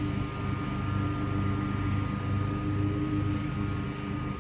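Commercial Bobcat zero-turn mower's engine running steadily at an even speed.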